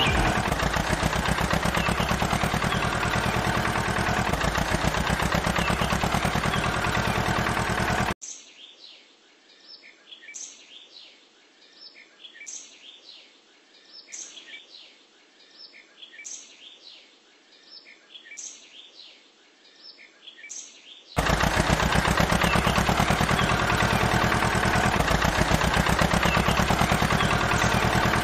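A loud, fast, even mechanical rattle, like a small motor or power tool running, cuts off abruptly about eight seconds in. A quiet stretch of birds chirping follows, with short high chirps repeating about once a second. Then the rattle cuts back in abruptly near the end.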